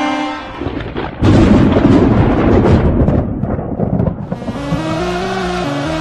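A hockey goal horn's steady note cuts off, then a loud thunder-crash sound effect rumbles for about three seconds, and an electronic goal song starts about four and a half seconds in.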